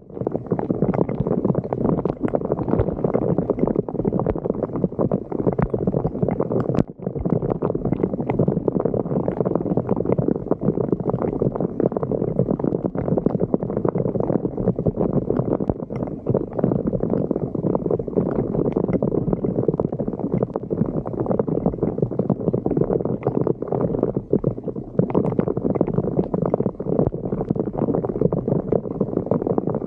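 Floodwater gurgling and rushing steadily down a street drain, with a dense bubbling roar that briefly drops out about seven seconds in.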